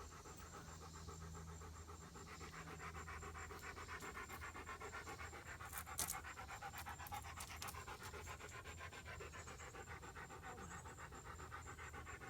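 Dog panting fast and steadily, with a single sharp click about six seconds in.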